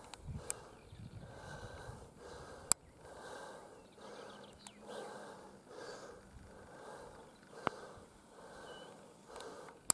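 A person breathing heavily close to the microphone, the breaths coming and going about once a second, with a few sharp clicks, the loudest near three seconds in and at the end.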